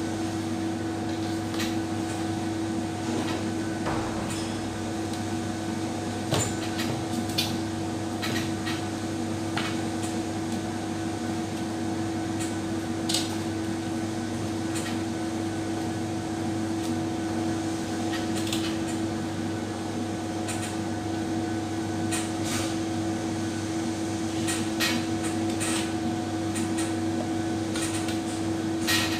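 Scattered light clicks and knocks from hand work on parts and tools, over a steady mechanical hum like a fan or air conditioner.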